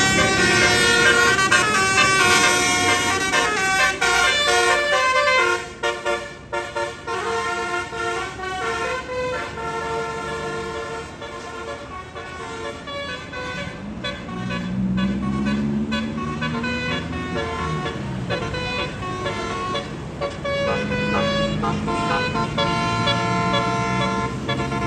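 Tour bus basuri musical air horns playing melodic runs of stepping notes. Partway through, a bus engine rises and falls in pitch underneath as it goes by.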